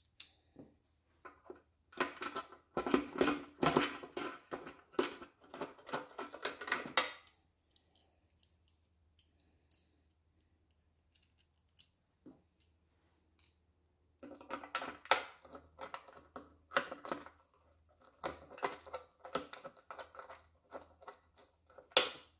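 Small metal fasteners, valve cover bolts and hold-down strips, clinking and rattling as they are handled and set in place. It comes in two stretches of busy clatter with a pause between, then one sharp metal click near the end.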